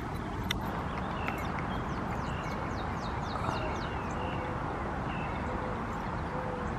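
Birds calling over a steady background hiss: a quick run of about eight short, falling chirps a couple of seconds in, with scattered short higher calls and a few lower notes around it.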